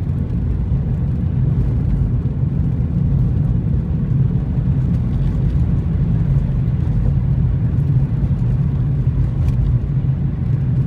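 Steady low rumble inside a small front-wheel-drive car's cabin as it drives over a snow- and ice-covered highway: tyre and road noise with the engine running.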